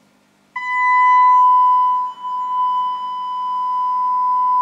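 A steady 1 kHz sine test tone from a signal generator, played through a small monitor amplifier's speaker. It switches on about half a second in, with faint overtones, and dips briefly about two seconds in.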